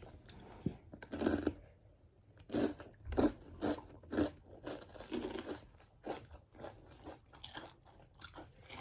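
Crunchy Takis rolled tortilla chips, on a cream-cheese-stuffed jalapeño, being bitten and chewed close to the microphone, with a string of irregular crunches.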